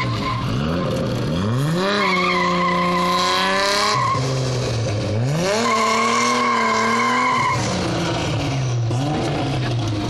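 Rally car drifting: its engine revs climb quickly twice and each time are held high for about two seconds before dropping off, with skidding tyre noise.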